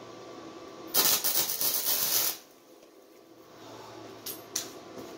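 Electric welder striking an arc for a quick tack weld on a snow-chain link: a loud crackling hiss that starts suddenly about a second in, lasts just over a second and cuts off, followed by a few light clicks of metal.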